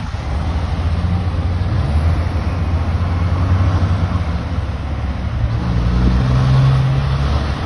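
Road traffic going by: a van passes, then a heavy prime mover hauling a refrigerated trailer drives past, its diesel engine rumble growing and loudest about six to seven seconds in.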